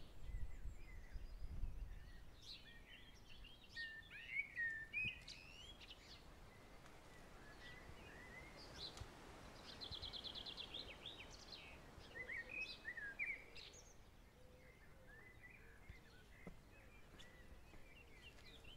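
Small songbirds chirping and singing in short, scattered phrases over quiet rural background noise, with a rapid trill of repeated notes about halfway through.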